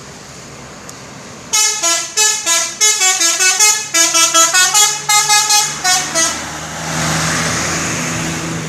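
Telolet horn of a Subur Jaya night bus: a musical multi-tone horn playing a quick jingle of short stepped notes for about five seconds, starting a second and a half in. Then a steady rush of engine and road noise as the bus goes by.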